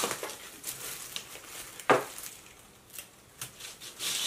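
Faint rustling and crackling of dry, shrivelled hoya leaves and trailing stems being handled, with one sharp click about two seconds in.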